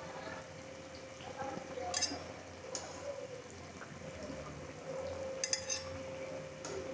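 Slotted metal spatula clinking against a steel frying pan and a glass bowl as fried patties are lifted out of the oil and set down. There is a sharp clink about two seconds in and a quick cluster of clinks about five and a half seconds in, over a faint steady hum.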